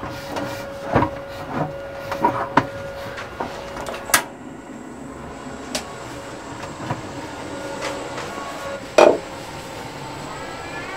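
Metal cookware knocking and clinking on a gas stove as a stainless steel steamer pot is set down and handled: a run of knocks in the first few seconds and one louder knock near the end, over a steady hum.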